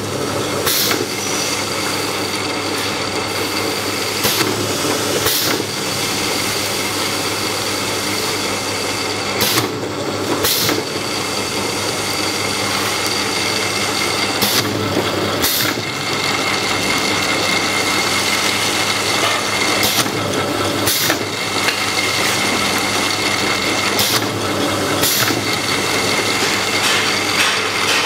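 Automatic linear capping machine for spray-pump bottles running: a steady motor and conveyor hum. Over the hum come pairs of short sharp air-cylinder strokes, about a second apart, repeating every four to five seconds as each bottle is capped.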